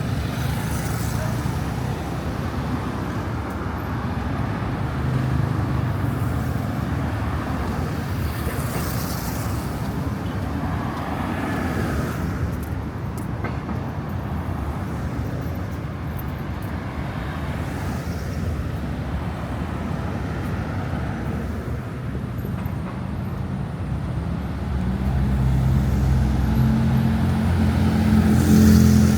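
City street traffic: the engines and tyres of passing cars make a steady rumble. A heavier engine grows louder near the end.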